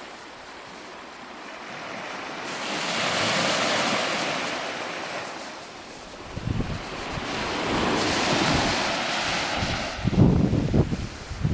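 Sea waves washing onto a beach, the surf swelling and falling back twice. Gusts of wind buffet the microphone with a low rumble in the second half, loudest near the end.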